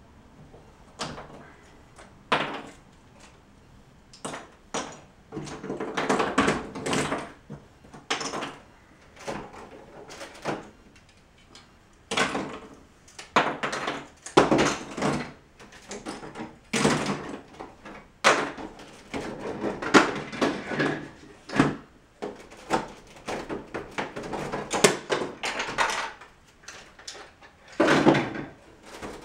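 Plastic Lego bricks being pried apart and set down on a table: irregular clicks and clacks, with short bursts of clattering as handfuls of loose pieces are moved.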